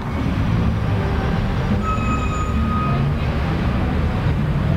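Mexico City Metro train running with a steady low rumble, and a brief high whine from about two seconds in to three.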